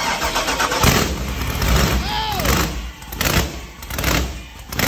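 A 408-cubic-inch stroker LS V8 in a Chevrolet Silverado burnout truck firing up for the first time and running loud, with sharp blips of throttle repeating about every second.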